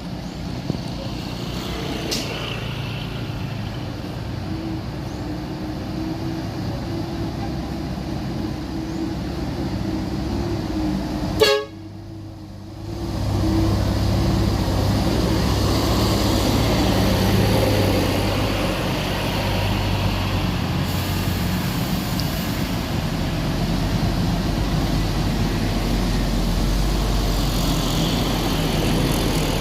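Large bus engine running close by, with its horn sounding. About eleven and a half seconds in there is a sharp click and a brief drop. After it comes a louder, deeper engine rumble.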